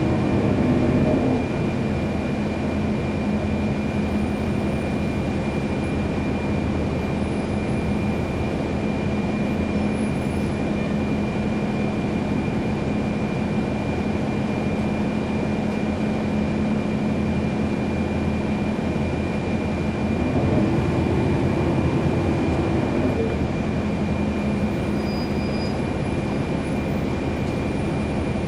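Cummins ISL9 diesel engine of a 2011 NABI 40-foot transit bus, heard from inside the cabin, running with a steady low drone and a thin high whine over it. About twenty seconds in, the engine grows louder and rises in pitch for a few seconds as the bus accelerates.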